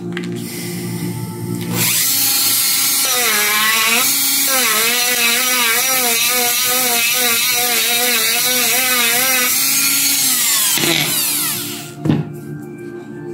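Handheld rotary tool starting about two seconds in and running at high speed as it grinds bark off dry deadwood, its whine wavering in pitch as the bit bites into the wood. It is switched off near the end and winds down with a falling whine.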